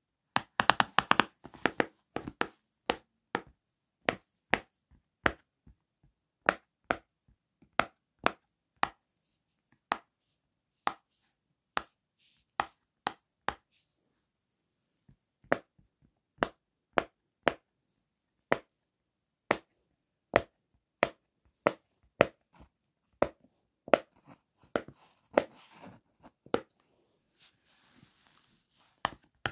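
Large round silicone pop-it fidget toy with its bubbles pressed in one by one by finger, each giving a sharp pop. A quick run of pops in the first two seconds, then about one or two a second, with a short pause around the middle.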